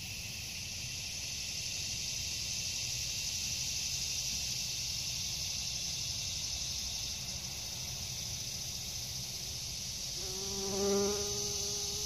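Steady, high-pitched chorus of insects throughout. Near the end a short, louder low buzz, a bumblebee flying close by.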